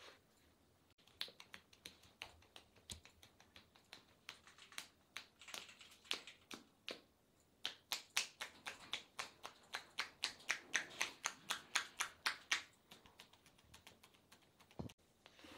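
Massage hands patting and tapping on bare skin: a long run of sharp, quick pats that grows faster and louder in the middle, then stops near the end.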